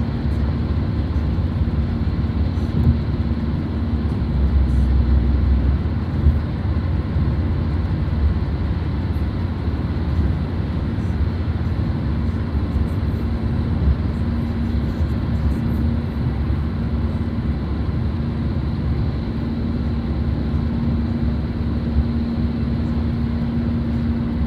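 Steady road and engine noise heard inside a moving car's cabin: an even low rumble with a faint steady hum.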